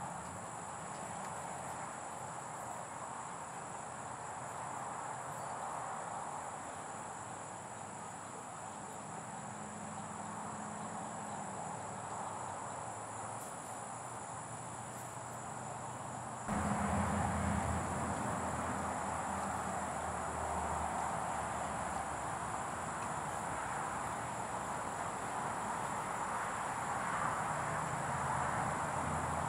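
Steady, high-pitched chorus of crickets trilling without a break over a soft outdoor hiss. About halfway through, the background steps up louder and a low rumble joins it.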